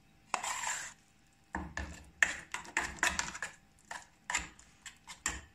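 Metal spoon scraping and clacking against an aluminium saucepan while stirring thick cheese curds. The strokes are irregular and repeated, with a short scrape under a second in and a denser run of knocks through the rest.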